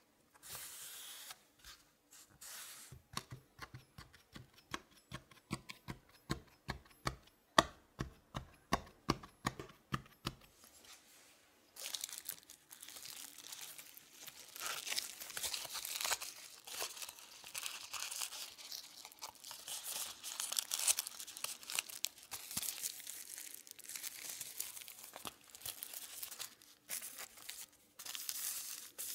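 A fork pricking the pastry base in a metal tart ring, a run of sharp taps a few times a second. Then baking paper crinkling and tearing as a strip of it is handled and pressed around the inside of the ring.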